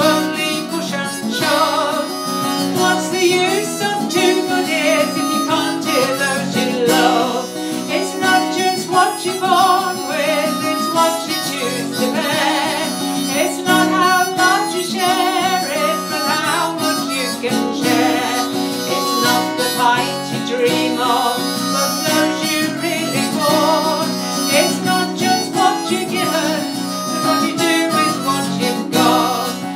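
Harmonica playing along with a strummed acoustic guitar in a folk song, with a woman singing.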